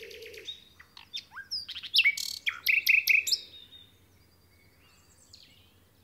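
Common nightingale singing: a fast trill ends about half a second in, then a phrase of sharp down-slurred whistles and loud repeated notes, which stops about four seconds in.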